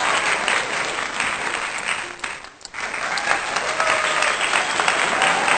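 Applause: many hands clapping in a dense patter that drops away briefly about two and a half seconds in, then picks up again.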